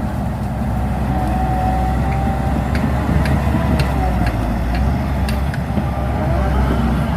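Shantui DH17C2 bulldozer's diesel engine running, a steady low drone with a wavering whine above it. A handful of sharp clicks come in the middle.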